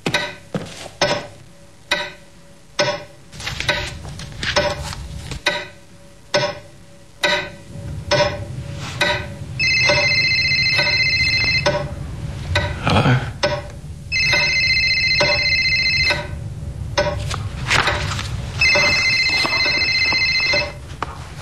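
A mobile phone ringing three times, each ring a steady electronic tone about two seconds long with short gaps between. Before the first ring, several seconds of scattered sharp clicks and knocks.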